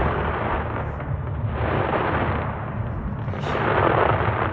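Fireworks display: aerial shells bursting in deep, rumbling booms that run together, with two louder swells about two and four seconds in.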